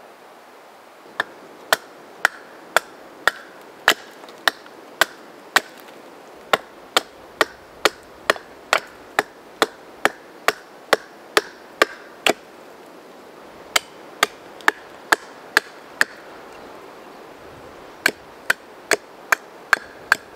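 A small hand axe chopping into a split piece of ash wood held upright on a log, hewing it down. The sharp chops come steadily about two a second, with two short pauses.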